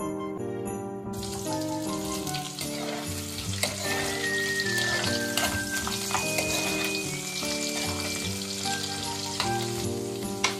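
Food frying in a pan, a steady sizzle that starts abruptly about a second in, with a few light clicks.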